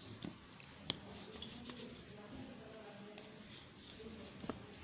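Faint scratching of a yellow Doms colour pencil drawing a stroke on paper, with a light click about a second in and another near the end.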